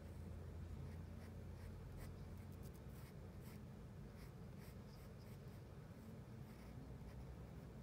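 Pencil lead scratching on paper in short, irregular strokes while shading small curved shapes, faint over a steady low hum.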